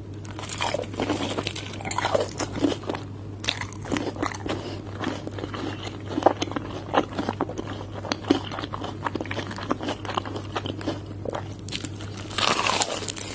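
Close-miked biting and chewing of crispy McDonald's fried chicken: irregular crunches of the breaded crust between chews, with a louder run of crunching near the end.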